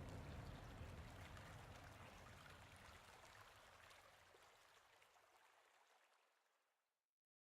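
Faint flowing-water ambience, an even hiss with small drips, fading out steadily to dead silence near the end.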